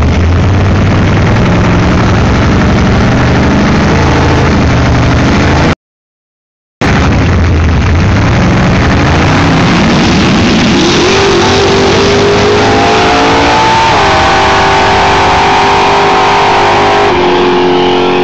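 A drag-racing car's engine running loud and rough. The sound cuts out completely for about a second near the middle. Then the engine note climbs steadily for several seconds and holds at high revs before easing near the end.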